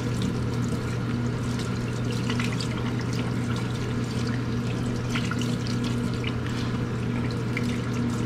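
Kitchen faucet running in a stainless steel sink, the water splashing over scallions rinsed under the stream, with small irregular splashes. A steady low hum runs underneath.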